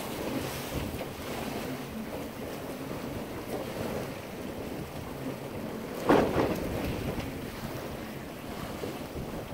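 Water rushing and splashing along the hull of a sailboat under sail, with wind buffeting the microphone. There is a sudden louder surge of water about six seconds in.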